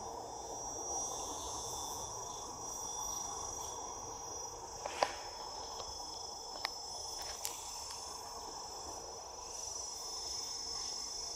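Steady, high-pitched drone of a tropical insect chorus, with a few sharp clicks around the middle.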